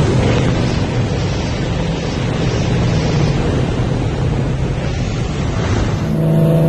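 Heavy wind and road rush at speed inside a Chevrolet Corvette C6's cabin, with the engine's low drone underneath. About six seconds in, the sound changes abruptly to a steadier, clearer engine note.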